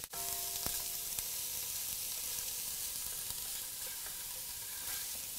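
Chopped onion, garlic and chili frying with cumin seeds in hot olive oil in a pan: a steady sizzle with small crackles. A short ring sounds near the start.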